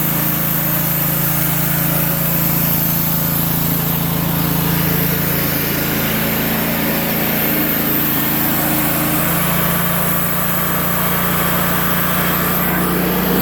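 A sawmill's engine running at a steady speed, with an unchanging hum.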